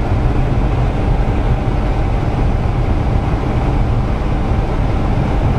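Steady engine, tyre and wind noise inside a moving vehicle's cabin at road speed, mostly a low drone.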